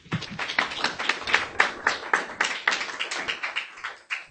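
A small audience applauding: a dense patter of hand claps that tails off near the end.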